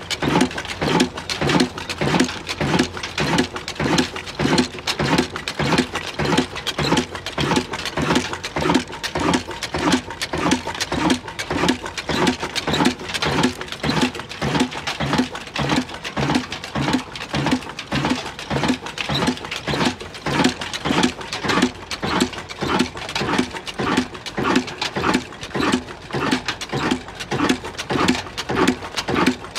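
Old black stationary diesel engine, a Ruston Hornsby, running steadily at slow speed, its exhaust beats coming evenly at about two a second.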